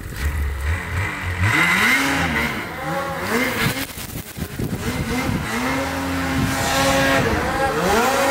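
Snowmobile engine revving up and down over and over, its pitch rising and falling with the throttle.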